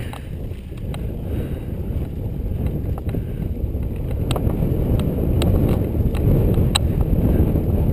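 Wind buffeting the microphone of a helmet-mounted action camera as a mountain bike rolls down a dirt trail, a steady low rumble. A few sharp clicks stand out from the rumble.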